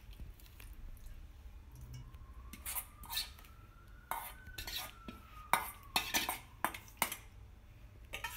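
A spoon scraping and clinking against a glass bowl as a thick vegetable mixture is scraped out onto rice: a run of irregular sharp clinks and scrapes, busier in the second half.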